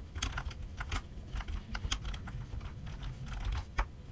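Typing on a computer keyboard: a quick, irregular run of key clicks, with a louder single click near the end.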